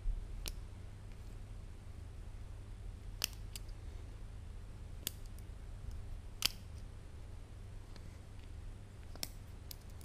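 Homemade butterfly knife with roller-chain handles clicking as it is handled: a few sharp separate clicks spaced a second or more apart, over a steady low hum.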